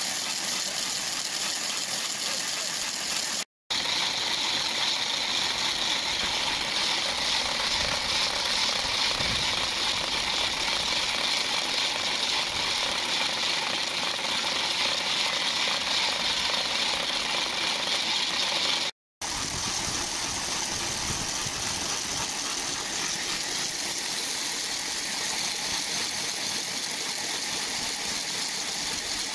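Hand-held wooden Easter rattles (Ratschen) being swung, a dense, continuous wooden clattering that breaks off for an instant twice. This is the Holy Week rattling that stands in for the silent church bells.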